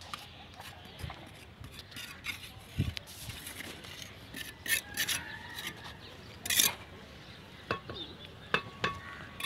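Bricklaying: a trowel scraping mortar and tapping bricks into place on a fresh course of brick, a string of short scrapes and knocks, the sharpest about five and six and a half seconds in.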